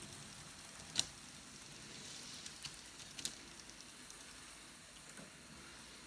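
A few small sharp clicks over a faint steady hiss, the loudest about a second in and another just after three seconds: handling of the N gauge model train set while the faulty locomotive is re-tracked.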